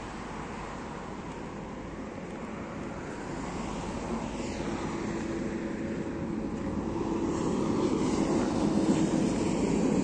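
A heavy vehicle's engine running with a steady low drone, growing steadily louder through the second half.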